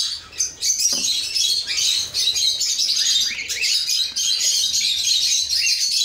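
Many caged cockatiels chirping and calling all at once, a dense, unbroken, high-pitched chatter.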